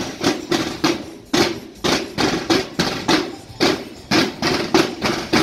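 A line of marching drums beaten together by parading drummers, playing a steady marching rhythm of about three to four strokes a second, each stroke with a short ringing boom.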